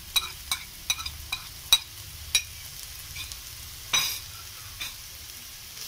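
Onions and green chillies frying in a pan with a faint sizzle, broken by a series of sharp taps of utensils against the pan as turmeric powder is added.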